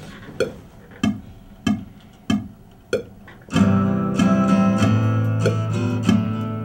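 A click track ticking evenly at about 95 beats a minute, then about three and a half seconds in, strummed acoustic guitar chords come in loudly over it.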